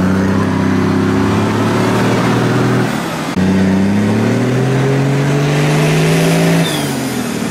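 Off-road 4x4 engine revving hard under load while pulling through mud on a tow-strap recovery, its pitch climbing steadily. It breaks off about three seconds in, a second long climbing rev follows, and it eases off near the end.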